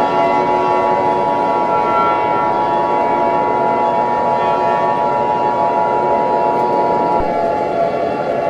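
Emergency alert alarm tone: a loud, steady drone of several held pitches sounding together, without rising or falling. One high tone drops out about seven seconds in.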